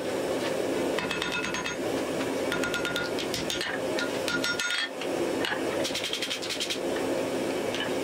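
Hand hammer striking a red-hot wrought-iron axe head on the anvil, in several quick runs of blows separated by short pauses, each blow ringing from the anvil and hammer.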